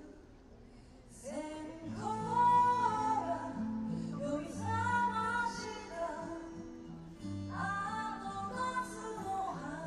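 A woman singing live over guitar and bass accompaniment. The music drops low for about the first second, then the voice comes back in with a new phrase.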